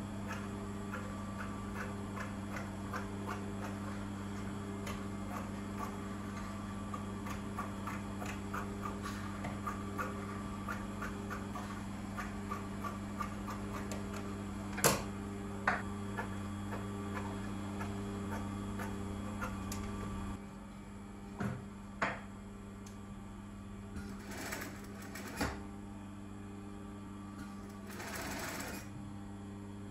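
Brother industrial sewing machine's motor humming steadily while scissors snip through satin fabric in small light cuts, with a few louder clicks. Near the end there is a brief run of stitching.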